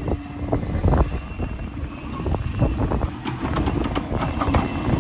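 7¼-inch gauge miniature ride-on train running past close by, its wheels clicking and clattering over rail joints and points, the clicks coming thicker about three seconds in as it draws alongside. Wind rumbles on the microphone throughout.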